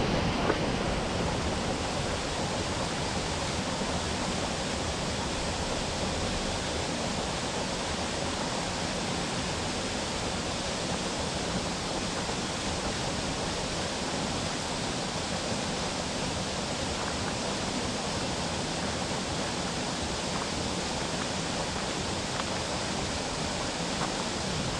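A tall, narrow waterfall dropping down a rock face, its falling water giving a steady, even rush.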